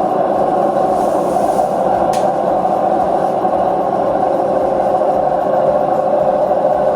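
LG direct-drive washing machine on its spin cycle, a loud steady rumbling roar with one brief click about two seconds in: the sign of worn drum bearings.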